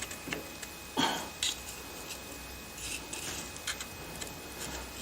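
A few light clicks and taps of small parts being handled and fitted into place, the strongest about a second in.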